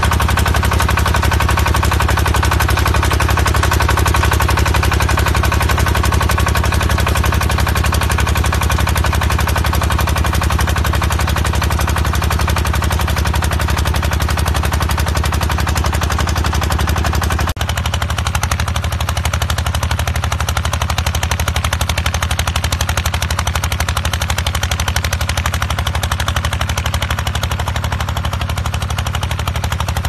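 Engine of a small crawler rotary tiller running hard with a rapid, even chugging while its rotor churns and throws soil. A little past halfway the sound changes abruptly to a slightly duller tone, with less in the middle range.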